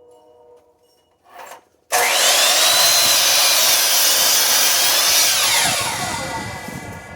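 A 10-inch compound miter saw starts abruptly about two seconds in and cuts through a chunk of firewood, its whine dipping and recovering under the load. Near the end the motor is released and winds down, its pitch falling.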